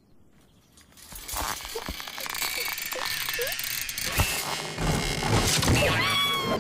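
Cartoon sound effects of old mattress coil springs creaking, rattling and twanging as they are pulled and stretched. It starts about a second in after a near-silent moment, grows louder near the end, and a pitched tone falls away at the very end.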